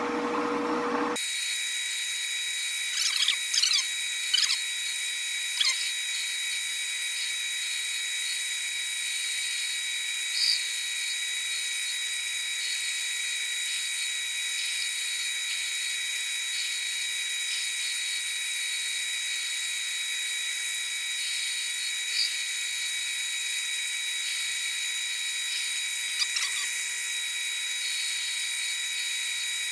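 Metal lathe running steadily with a whine while a ball turner's cutter takes a cut on the spinning workpiece, with a few brief squeals from the cutter chattering against the work.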